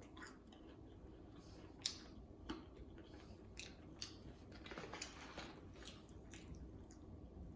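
Faint chewing and wet mouth sounds of someone eating, with scattered short smacks and clicks.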